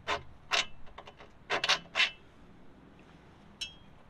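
Hand file rasping on the camper trailer's metal frame in about five quick strokes over the first two seconds, cutting a reference mark where the swing arm's alignment cam tab sits. A faint short click comes near the end.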